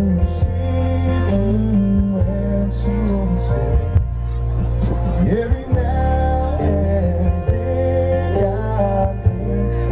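Live country band playing, with guitar over sustained bass notes and regular drum hits, and singing at times.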